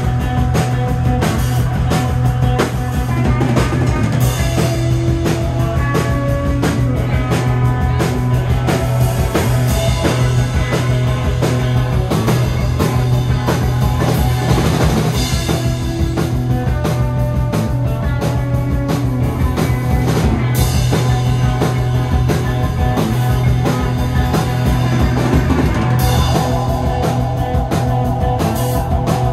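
Psychedelic rock band playing live with no singing: a steady drum-kit beat, electric guitar, bass guitar and keyboards.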